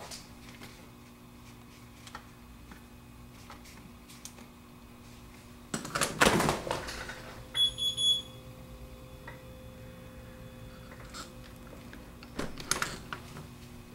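A short run of high electronic beeps about eight seconds in, just after a loud burst of noise lasting under a second. A second, shorter burst of noise comes near the end.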